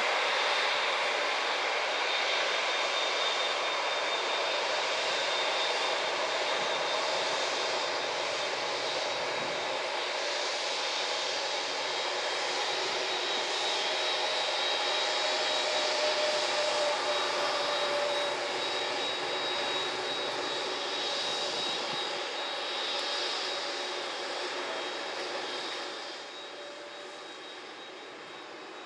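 Airbus A380-861's Engine Alliance GP7200 turbofans running at low power as the airliner taxis: a steady rushing roar with a high whine, fading over the last few seconds as the aircraft moves off.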